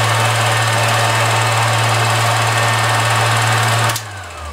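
Keystone 16mm film projector running with a steady low motor hum and the rapid clatter of its film mechanism. About four seconds in it is switched off: the sound drops suddenly and the motor winds down with a falling whine.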